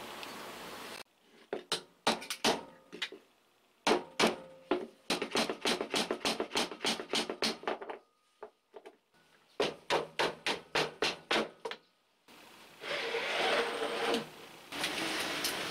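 Sharp metal clicks and knocks in quick runs of several a second as the parts of an old Makita 1800 electric planer are taken apart, then a couple of seconds of rough scraping as the cutter drum is slid out of its aluminium housing.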